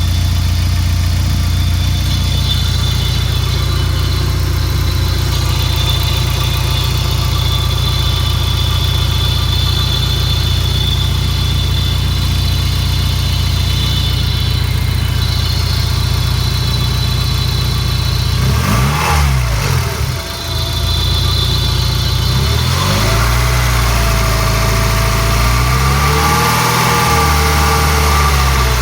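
Peugeot 306 GTi-6's 2.0-litre four-cylinder engine idling with a rattly, screechy noise of unknown cause, including a steady high thin whine over the idle. About 18 seconds in the engine is revved briefly, and from about 22 seconds it is held at raised revs that rise and fall before dropping back near the end.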